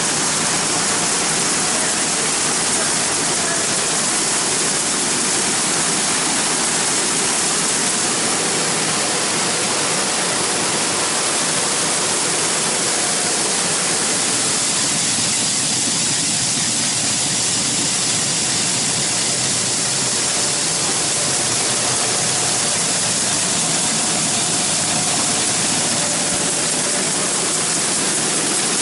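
Seed grain pouring into a seed drill's hopper: a loud, steady rushing hiss that holds on without a break.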